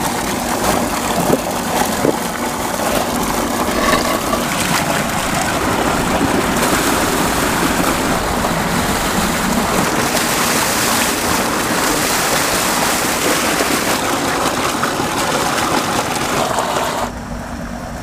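Water gushing from a tube-well's outlet pipe and splashing over green mangoes held under the stream to wash them. About a second before the end the rush drops away, leaving a quieter steady hum.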